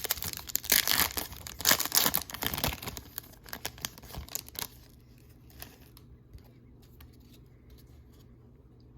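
Trading card pack wrapper being torn open and crinkled, loud for the first three seconds, then fainter rustling and a few light clicks.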